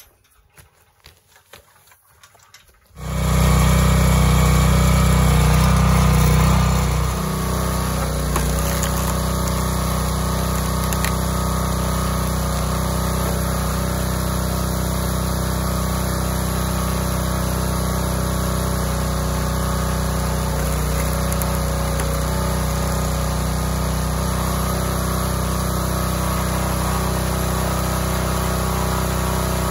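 Small gasoline engine on a hydraulic log splitter starting up about three seconds in, then running steadily, a little quieter after about seven seconds.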